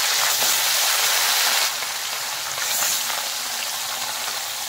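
Rui (rohu) fish steaks frying in hot mustard oil in a kadai: a dense, steady sizzling hiss with small crackles of spattering oil, dropping a little in level just under two seconds in.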